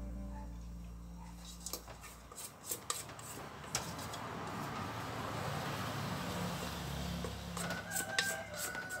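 Spatula scraping and scooping thick cookie batter around a stainless steel mixer bowl, with a few light clinks and knocks of the bowl.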